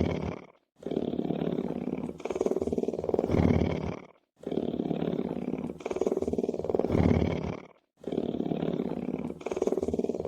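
Lion purring: a deep rumbling purr in stretches of about three and a half seconds, broken by short silences three times. The same stretch repeats identically each time, as in a looped recording.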